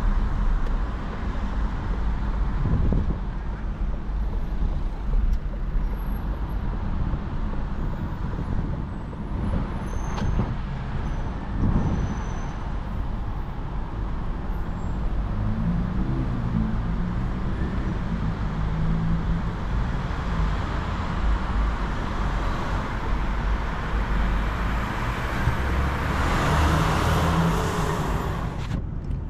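Steady low road and tyre rumble heard inside the cabin of a Citroen C5 Aircross plug-in hybrid driving in traffic. Near the end a louder hiss builds up and then cuts off suddenly.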